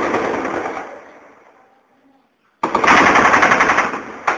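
Heavy automatic gunfire. A long burst of rapid shots dies away about two seconds in. After a brief pause, another loud burst starts abruptly and breaks into separate shots near the end.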